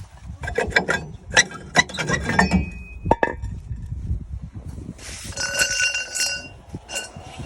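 Metal tools and brake parts clinking and knocking together, a run of sharp clanks. About five seconds in comes a ringing metallic clatter lasting about a second.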